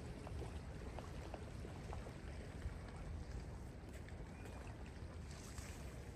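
Wind buffeting and surf noise on a beach: a steady low rumble with scattered light ticks.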